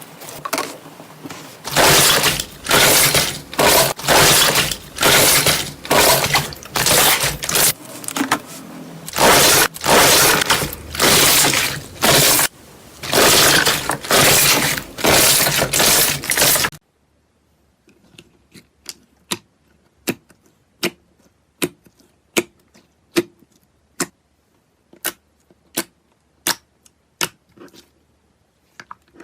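Slime being worked by hand. Loud noisy squishes come in a steady rhythm, about two a second, then stop suddenly about halfway through. A quieter string of sharp small clicks and pops follows.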